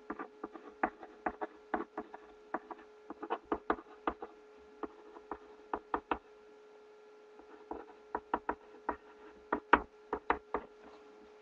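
Irregular sharp taps of a pencil on paper on a desk, two to four a second with a short pause partway through, over a faint steady electrical hum.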